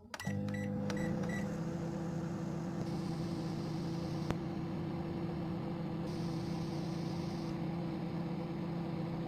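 Microwave oven started with a few short keypad beeps, then running with a steady hum. A single click comes about four seconds in.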